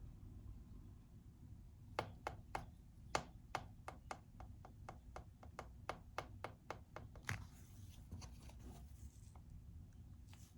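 A quick run of light taps and clicks, about twenty over five seconds, starting about two seconds in, from the phone being handled and tapped on the repair bench.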